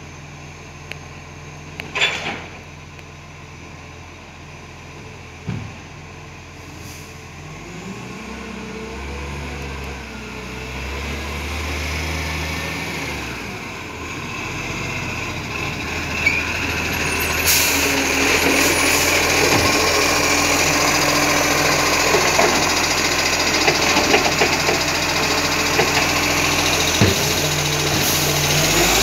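Diesel engine of an Iveco ACCO side-loader garbage truck approaching and growing steadily louder, its note rising and falling as it comes up the street. From a little past halfway, a steady loud hiss joins the engine as the truck pulls up beside the bin.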